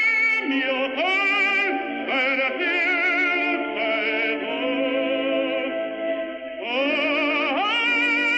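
Background music: a voice singing long held notes with a strong vibrato, in an operatic style.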